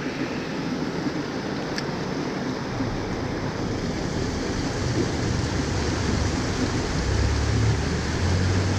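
Shallow stream water running over rocks in a small riffle, a steady rushing. A low rumble on the microphone builds from about three seconds in and is strongest near the end.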